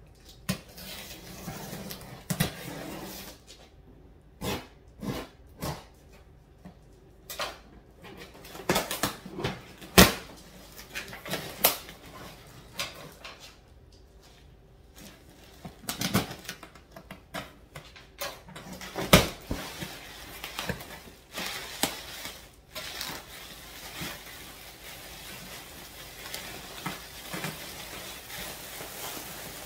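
Cardboard shipping box being opened by hand: irregular knocks, taps and scrapes as the taped flaps are cut and pulled open, followed by a steadier rustling over the last several seconds.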